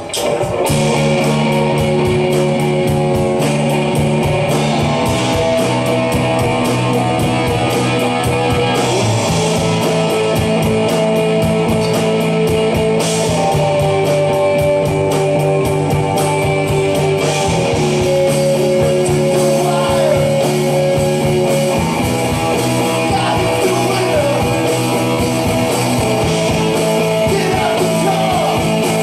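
Rock band playing live: electric guitars hold chords that change every few seconds over a steady beat.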